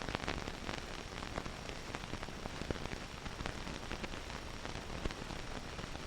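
Steady crackling hiss with many scattered clicks: the surface noise of an old film soundtrack between narration.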